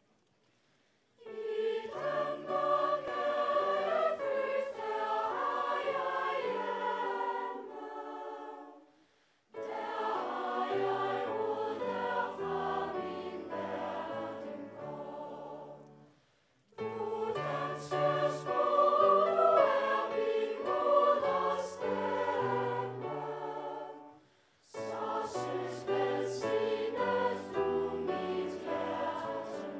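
Mixed children's and youth choir singing, in four phrases separated by short pauses.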